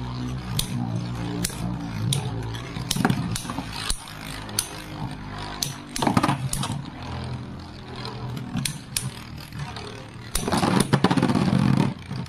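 Metal Beyblade tops spinning in a plastic stadium, humming steadily and clacking sharply against each other many times, with a louder stretch of grinding contact near the end that ends in a knockout.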